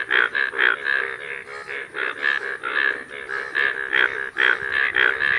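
A chorus of male Indian bullfrogs giving breeding calls: loud, rapidly repeated croaks from inflated paired vocal sacs, several a second, with many calls overlapping.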